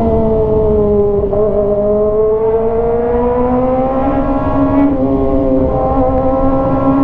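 Kawasaki ZX-25R's 249 cc inline-four running through a straight-piped GP exhaust, loud and steady while cruising in third gear. The engine note dips slightly about a second in, then rises gradually as the bike gathers speed.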